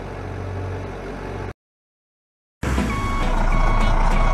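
Truck engine running with a steady low hum, cut off by about a second of dead silence, then a louder truck engine with a reversing alarm beeping about one and a half times a second as the dump truck backs up.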